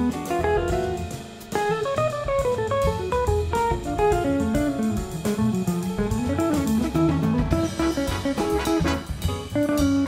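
Background music: an instrumental jazz tune with a guitar melody over drums.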